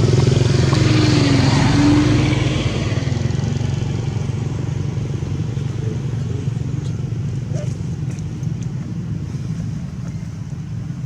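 A motor vehicle's engine running steadily with a low, rapidly pulsing drone, growing fainter after about two seconds and then holding steady.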